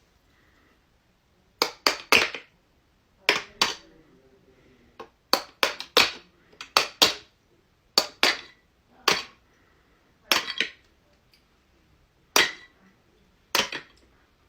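A fidget toy being clicked and snapped by hand: a run of sharp clicks, mostly in quick clusters of two to four, with short pauses between clusters.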